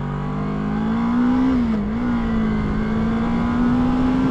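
Kawasaki ER-6f (Ninja 650R) parallel-twin engine accelerating. Its pitch rises for about a second and a half, dips briefly near the two-second mark as a gear is changed, then holds nearly steady. Heard through a helmet-mounted mic with wind rush underneath.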